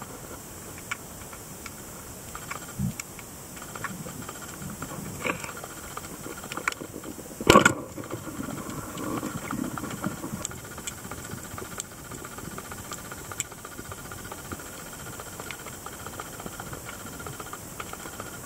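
Underwater ambience picked up by a camera in its housing: a steady hiss with scattered faint clicks and crackles, and one sharp knock about seven and a half seconds in.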